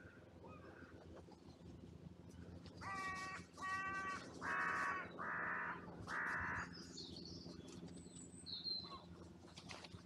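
Carrion crow cawing five times in quick succession, each caw about half a second long, followed by faint high chirps from a small bird.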